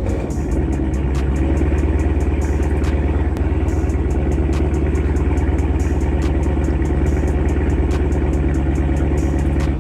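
Dodge Charger SRT 392's 6.4-litre HEMI V8 idling steadily and loudly, with a deep even rumble, cutting off suddenly at the end.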